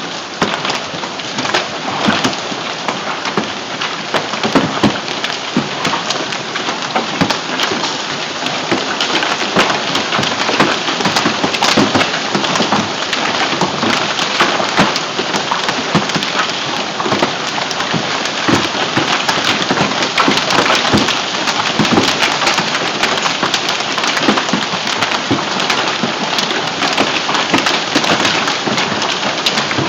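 Heavy hailstorm: hail and rain pelting down on surfaces, a dense, steady clatter of countless sharp impacts over a continuous hiss.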